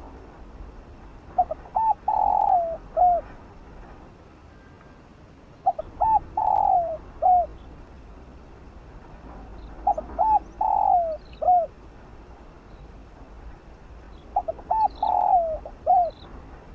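Spotted dove cooing its song four times, each phrase a couple of quick short coos, a longer falling coo and a closing coo, repeated about every four seconds.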